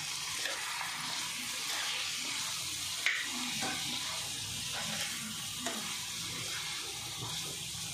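Masala-coated chicken pieces sizzling steadily in hot oil in a pan as they are stirred with a spoon to mix in freshly added spice powder, with a few light clicks of the spoon against the pan, the sharpest about three seconds in.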